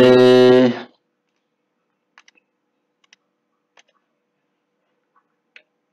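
A voice holds one steady-pitched hesitation sound for about a second at the start. After that there are only a few faint, scattered clicks from the computer keyboard and mouse.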